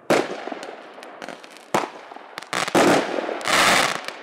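A 36-shot, 0.8-inch consumer fireworks cake firing its final shots. Shells burst in sharp bangs: one at the start, more at uneven intervals over the next three seconds, and a denser half-second rush of bursting noise near the end.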